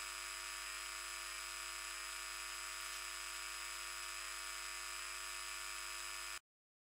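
Mains electricity grid voltage played as audio, high-pass filtered: a steady hiss laced with many steady high tones from the grid's higher-order harmonics, noise generated by a connected load. It cuts off suddenly about six seconds in.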